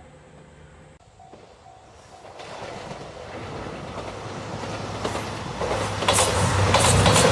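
JR Shikoku 2700-series diesel train approaching and passing over a level crossing. Its noise builds steadily from about two seconds in, with wheels clicking over the rail joints near the end. A level-crossing warning bell dings faintly about twice a second at first.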